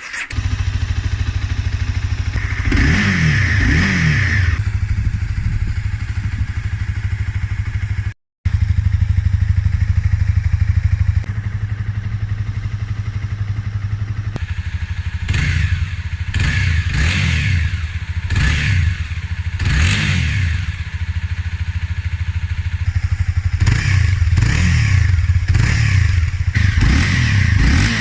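Honda CBR300R's single-cylinder engine running on its stock exhaust, idling steadily with throttle blips: one rev a few seconds in, then a string of quick revs rising and falling in the second half. The sound drops out briefly about eight seconds in.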